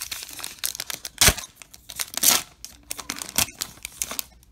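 A baseball card pack's wrapper being torn open and crinkled as it is peeled off the cards, a run of crackles with a few sharper, louder tears.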